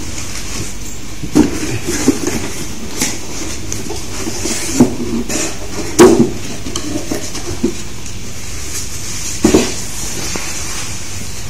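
Cardboard being handled: the flaps of a shipping box and a boxed model kit bump, scrape and rustle as the kit is lifted out, in a string of short knocks with the loudest about six seconds in. A steady hiss runs underneath.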